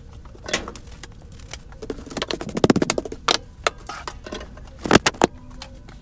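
Knocks and clatter of tools and materials being handled on a workbench, with a quick run of taps a little before midway and two sharp knocks near the end.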